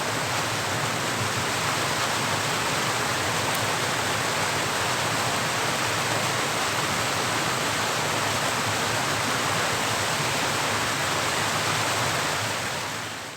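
Steady rushing of flowing river water, fading away near the end.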